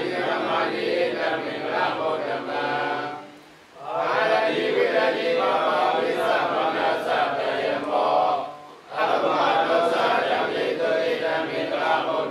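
A group of Buddhist monks chanting together in unison, in long phrases broken by short pauses for breath about three and a half and nine seconds in.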